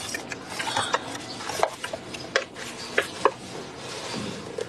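Sheets of paper being handled: irregular light clicks and rustling, with a few sharper ticks about every half second to second.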